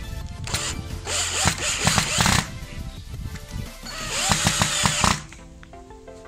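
Electric screwdriver driving small screws through a metal hinge into a shelf board: two runs, the first about two seconds long, the second about a second, ending abruptly as the screw seats.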